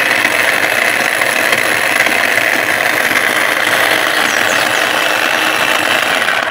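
Lenoxx mini food processor's motor running steadily, its blade chopping vegetables and sausage in the plastic bowl, then cutting off at the end. The machine is still running at full power after a year of use.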